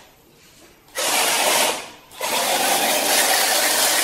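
Small electric gear motors of a homemade radio-controlled robot car whirring in two bursts as it drives: a short run about a second in, then a longer one starting just after two seconds.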